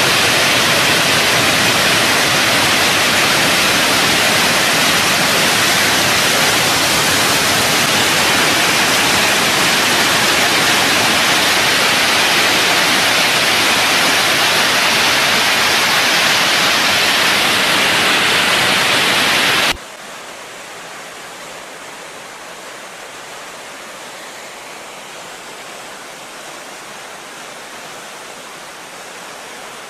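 Steady, loud rushing of a high-speed water jet discharging from a dam's outlet valve. About two-thirds of the way through it cuts off suddenly to a quieter, even rushing of water spray from another dam release.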